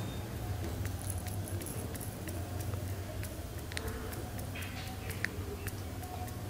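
Faint small clicks and rustles of fingers working open a small vial of citric acid, over a steady low hum.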